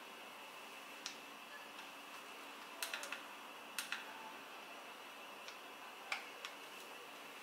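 Scattered light clicks and ticks over a quiet hiss, some in quick pairs and triples about three and four seconds in, from a handheld smartphone gimbal being tilted and handled.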